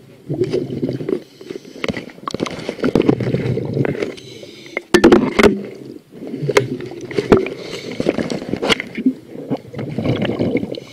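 Scuba diver's exhaled bubbles bubbling out of the regulator, heard underwater close to the camera, in repeated bursts a second or two long. A few sharp knocks about five seconds in.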